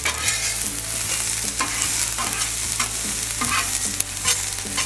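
Sliced bell peppers and onions sizzling on a hot steel flat-top griddle at about medium-high heat, while a metal spatula scrapes and tosses them across the cooktop in several short strokes.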